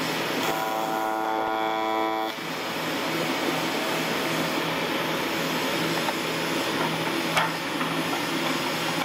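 AC TIG welding arc on aluminium from a Miller Dynasty inverter, buzzing steadily and then cutting off about two seconds in. After it a steady hiss remains, with one sharp click near the end.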